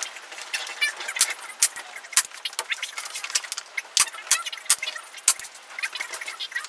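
Black polythene damp-proof membrane crinkling and gaffer tape being worked onto a canoe's wooden frame by hand: a dense, irregular run of crackles with sharp clicks and snaps.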